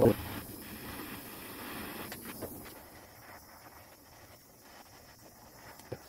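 Handheld gas torch hissing steadily as it heats a soldered seam on a brass radiator, with a sharp knock at the very start and a small click near the end. The hiss grows lighter after about three seconds.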